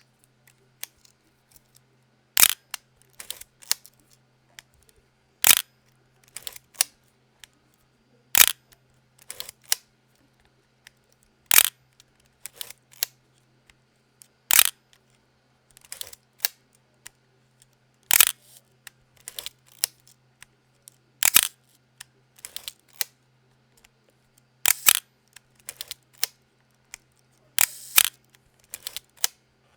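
Pentax K1000 SE mechanical 35 mm SLR firing: a sharp shutter-and-mirror click, then the smaller ratcheting clicks of the film advance lever being wound. The cycle repeats about every three seconds, nine or ten times.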